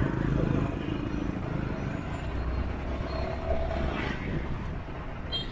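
Street traffic noise heard from a motorbike riding through city traffic: a steady mix of engines and road rumble.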